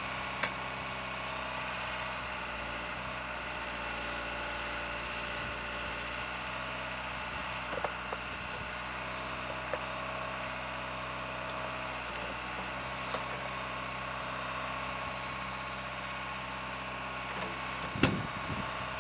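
Case backhoe loader's diesel engine running steadily while the backhoe digs, with a few metallic clanks from the bucket and boom and one loud clank near the end.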